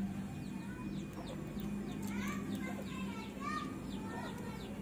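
Birds chirping: many short, quick falling calls, repeated throughout, over a steady low hum.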